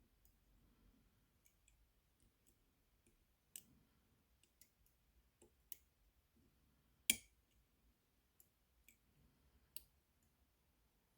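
Faint, scattered clicks of a pick and tensioner working the pin stacks of a tiny Baton dimple camlock, with one sharper click about seven seconds in.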